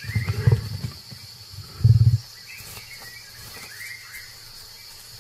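A tiger gives two low growls, the first right at the start and a louder, shorter one about two seconds in. Birds chirp now and then over a steady insect drone.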